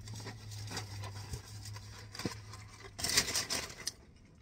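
Close-up chewing of a crunchy fried empanada: small crackling crunches, with a louder crackly stretch about three seconds in. A low steady hum runs underneath and stops around the same time.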